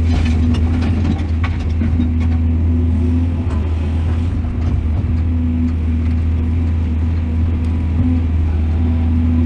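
Heavy diesel engine of an excavator running steadily under a low drone, with a few light knocks in the first few seconds.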